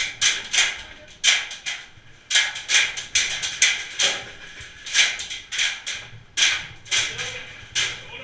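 Airsoft guns firing: sharp shots at an irregular pace, often in quick pairs or threes, a few each second.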